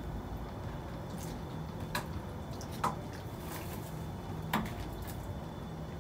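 Steady low hum with three short, sharp taps in the middle, the last the loudest.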